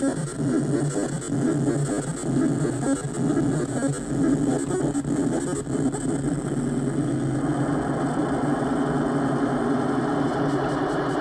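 Homemade CMOS noise synthesizer (40106 oscillator bank, 4017 step sequencer, 4046 VCO, through a low-pass filter) putting out a rough, dense buzzing drone. It settles into a steadier, more even buzz about seven seconds in.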